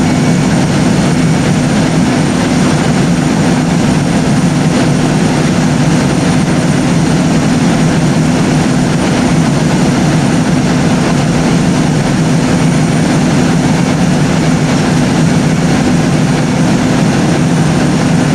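Fire engine's powered overhead ladder rack running as it lowers the ladders from the roof down to the side of the truck: a steady, loud mechanical hum that holds one pitch throughout.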